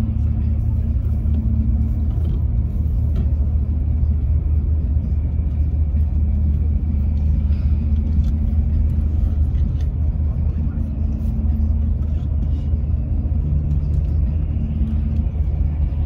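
Steady low drone of a vehicle's engine and road noise, heard from inside the moving vehicle.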